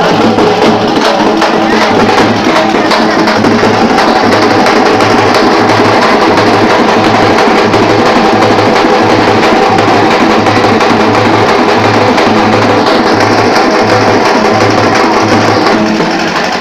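Loud festival music driven by drums and percussion, with a steady low beat about twice a second.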